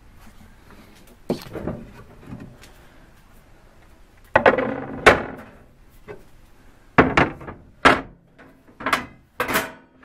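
A series of knocks and thunks from a motorhome's kitchen covers being handled: the sink cover and the hinged stove-top lid being moved and lifted. The loudest knocks come about four and five seconds in, with more from about seven seconds on.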